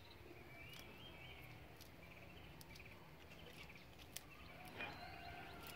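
Near silence: faint bird chirps twice, with a few soft clicks as a strip of bark is peeled off a branch by hand.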